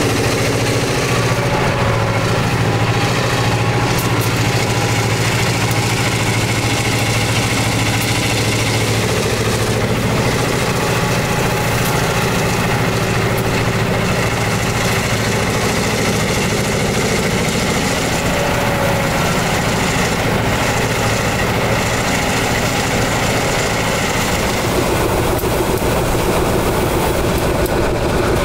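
GP11 diesel-electric locomotive running steadily under way, heard from a car pacing alongside and mixed with the car's road noise. The tone shifts near the end.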